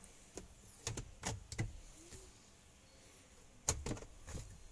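Plastic glove box of a Toyota Hilux Revo being worked by hand: several short clicks and knocks of the lid and its latch, three in quick succession and a louder one about three and a half seconds in, as the freshly refitted glove box is tried out.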